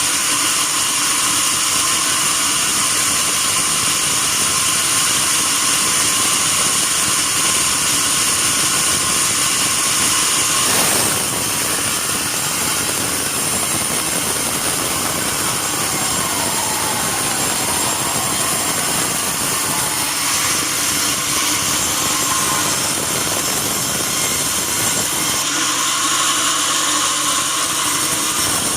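Sawmill band saw running steadily, a loud, even high-pitched whine and hiss. About eleven seconds in there is a brief knock, after which it runs a little quieter.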